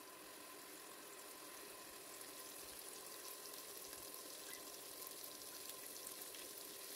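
Grated garlic frying in a little oil in a pressure cooker pot over low-to-medium heat: a faint, even sizzle that slowly grows louder as the oil heats.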